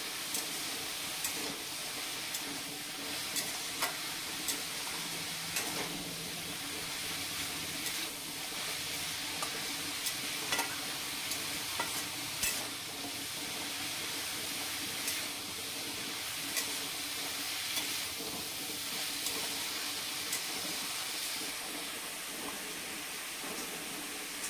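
Shredded cabbage and potatoes sizzling in oil in a metal kadai while a metal spatula stirs them. The spatula scrapes and clicks against the pan at irregular moments over a steady frying hiss.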